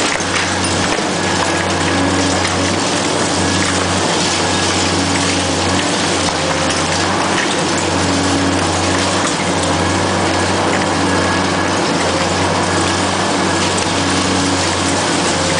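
Hydraulic demolition excavator running steadily under load while its concrete-crusher jaws chew through a reinforced-concrete wall, a low engine drone that dips briefly every few seconds under a constant noise of crumbling concrete and falling rubble.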